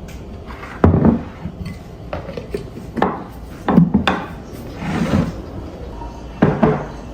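Dishes and pots being handled and set down, giving about five separate knocks and clatters with a scrape between them.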